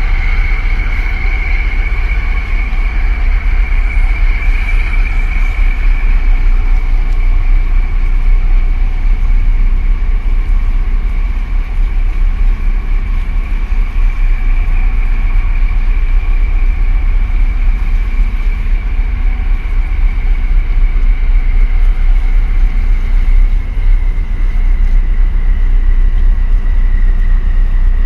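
Steady low engine rumble from a passing container ship and the harbour tug running alongside it, with a high whine that sinks slowly in pitch.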